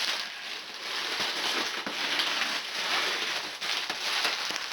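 Cardboard box and packing material being pulled apart and handled by hand, with continuous crinkling, rustling and scraping.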